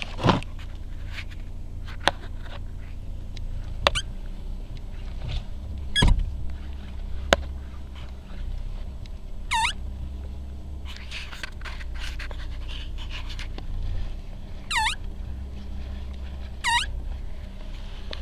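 Rubber steering dust boot squeaking in freezing cold as the steering wheel is turned. There are short squeaks that dip and rise in pitch, one about ten seconds in and two more near the end, over a steady low hum, with a few clicks and knocks in the first half.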